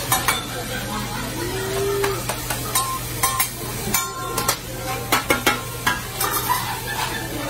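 Food sizzling on a hibachi flat-top griddle, with a chef's metal spatula clacking and scraping against the steel at irregular moments, a few strikes ringing briefly.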